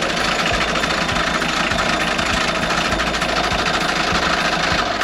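Vetus marine diesel engine running at idle, just started, heard close up in the open engine room: a loud, steady, fast mechanical clatter.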